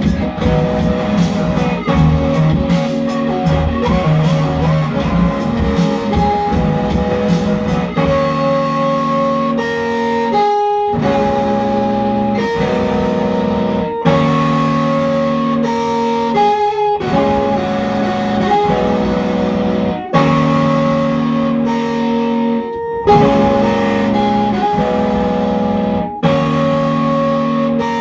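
Electric guitar played live: ringing chords, busier at first, then held chords that change every few seconds with short breaks between them.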